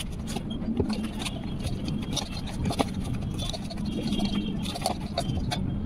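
Hands kneading wheat-flour dough in a steel bowl: irregular soft squelches and small knocks against the bowl, the sharpest about a second in and near three seconds in, over a steady low rumble.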